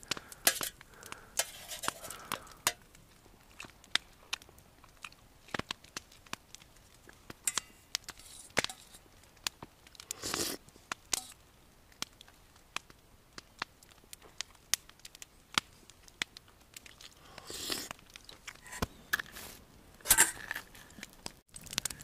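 Campfire burning down to coals, crackling with irregular sharp pops. A few louder rustling noises come about ten seconds in and again near the end.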